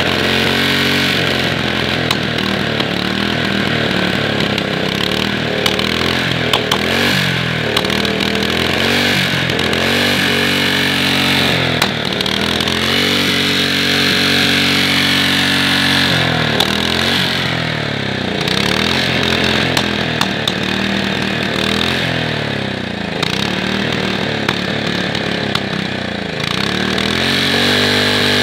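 Tuned-up Honda GX120 single-cylinder four-stroke engine running and being revved up and down over and over by hand at the throttle. It holds a steady speed for a few seconds around the middle and revs up again near the end.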